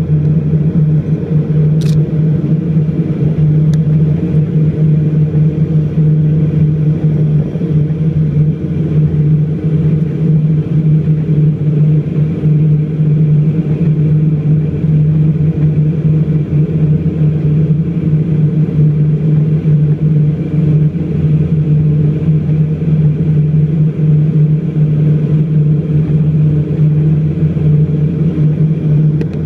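Inside the passenger cabin of an Embraer EMB 120 Brasilia on approach, its turboprop engines and propellers drone loudly and steadily, with a strong low hum.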